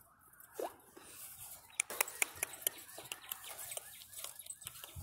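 Light rustling with a run of sharp crackling clicks from about two seconds in, as of grass and leaves being handled, and a short rising squeak about half a second in.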